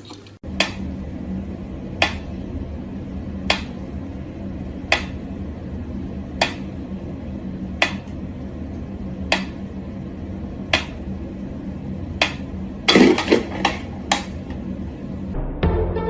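Sharp taps or clicks repeating evenly about every one and a half seconds over a steady low hum, with a quick flurry of several taps near the end.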